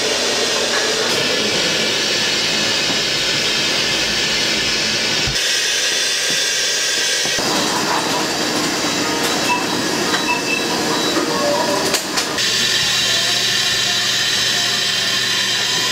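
Steady loud hiss of steam from dumpling steamers, its character changing abruptly a few times.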